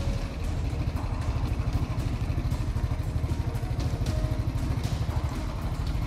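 An engine running steadily at idle-like speed, with a fast, even low throb.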